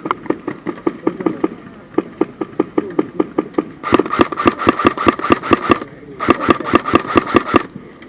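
Airsoft electric gun (AEG) firing on full auto: two bursts, the first about two seconds and the second about a second and a half, each a rapid run of shots over the gearbox motor whine. Before them, a steady run of sharp clicks at about six a second.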